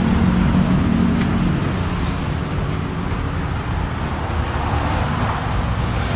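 Steady low rumble of a motor vehicle running close by, with a constant hum under a wash of noise.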